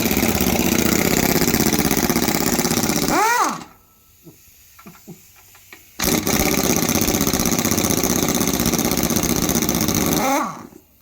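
Power impact wrench hammering on engine bolts in two long runs, each winding down with a short drop in pitch as the trigger is released. Between the runs there are a few small metallic clicks from the socket and bolts.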